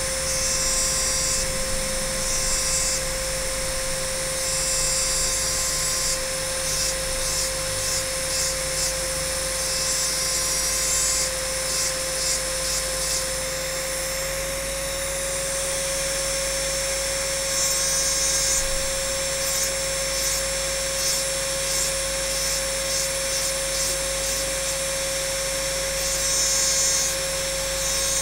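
High-speed rotary engraving drill running with a steady whine, a tiny diamond burr grinding into wet crystal glass, with a scratchy hiss that comes and goes as the burr works the surface.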